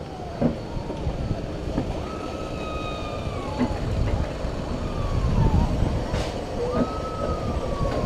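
Alpine coaster sled running down its metal tube rails: a steady rumble from the wheels, with several drawn-out squeals from the sled on the track and a few knocks.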